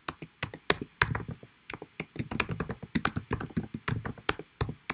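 Typing on a computer keyboard: a rapid, irregular run of keystrokes as a line of code is entered.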